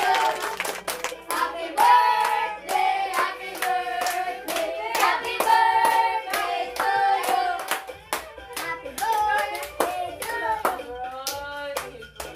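Several people singing a birthday song together while clapping their hands in a steady beat.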